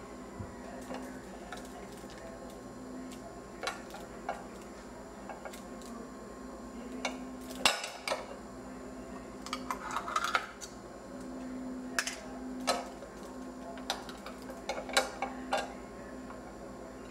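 Glass laboratory ware, a petri dish and beaker, being handled on a foil-covered bench: scattered light clinks and taps, the sharpest about eight seconds in and a cluster later on, over a steady low hum.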